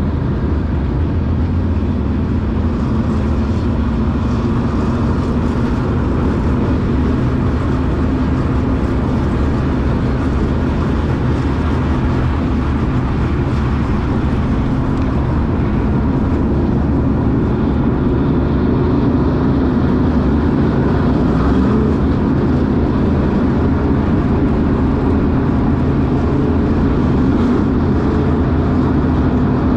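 Engines of dirt Super Late Model race cars and the pace truck running steadily at pace-lap speed. The pitch creeps up a little about two-thirds of the way through.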